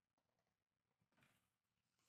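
Near silence, with one faint, brief rustle of packaging being handled about a second in.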